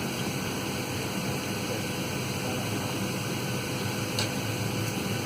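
Steady rushing cabin noise inside a Boeing 737-300 airliner, with a faint even tone and low hum running through it.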